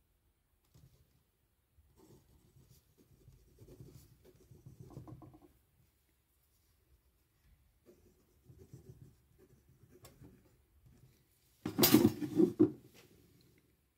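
Handwriting on paper: a pen scratching across the page in short stretches, with pauses between. Near the end there is one brief, louder burst of noise.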